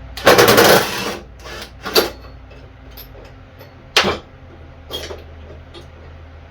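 Hand tools and metal parts of a riding mower's brake linkage being worked on: a loud, rapid clicking rattle lasting under a second near the start, then single clanks and knocks about two, four and five seconds in.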